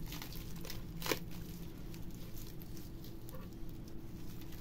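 Cling film and bubble wrap crinkling and rustling as film-wrapped wooden box blanks are handled, with a sharper click about a second in.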